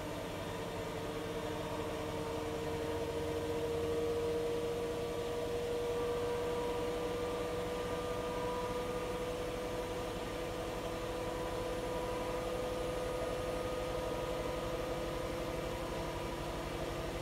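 Siemens iQ500 9 kg, 1200 rpm front-loading washing machine on its spin cycle: a steady motor whine slowly rising in pitch over a low hum and rushing drum noise. The machine is presented as a sound unit, so there is no knocking from worn shock absorbers and no bearing roar.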